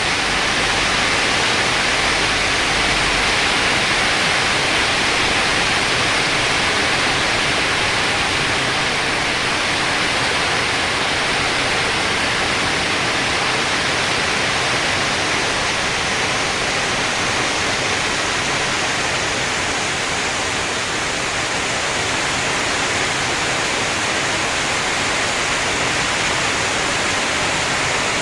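Heavy rain falling steadily: a dense, even hiss with no thunderclaps.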